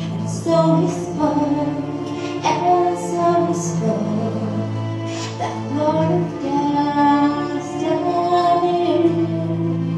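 A woman singing solo into a microphone, with long held notes over a steady low sustained backing.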